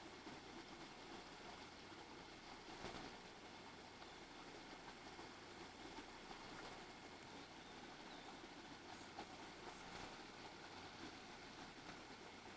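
Near silence: a faint steady hiss with a couple of soft ticks.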